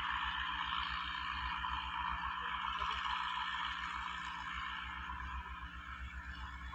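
Diesel engines of two large four-wheel-drive farm tractors working a field at a distance: a fast, even low pulsing under a steady hiss, easing off slightly near the end.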